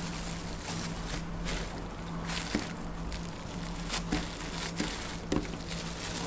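Bamboo sushi rolling mat wrapped in cling film, squeezed and pressed by hand around a sushi roll: soft rustling and crinkling of the film with a few light clicks from the bamboo slats, over a steady low hum.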